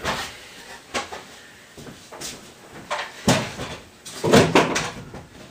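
Hollow wooden knocks and clatter: a wooden deck stringer being handled against the notched deck beams of a boat hull, a few irregular strikes with the loudest cluster about four seconds in.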